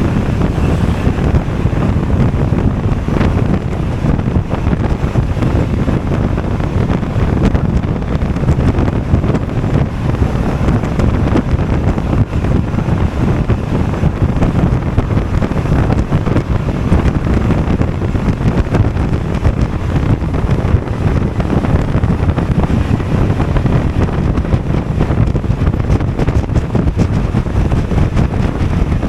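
Steady wind rush buffeting the microphone of a Honda Forza 250 scooter riding at speed, a dense low rumble with road and engine noise underneath.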